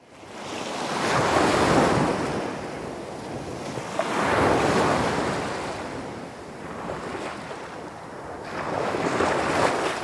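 Ocean surf breaking and washing back, swelling and fading three times, with the biggest surges about two, five and nine seconds in.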